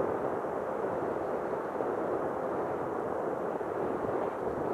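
Jet engine noise from low-flying military fighter jets, a steady rushing sound with no sharp cracks or peaks.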